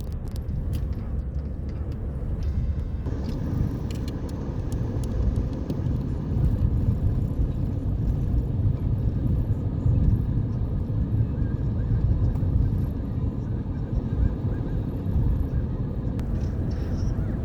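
Car cabin road noise while driving: a steady low rumble of tyres and engine, with a few faint clicks in the first few seconds.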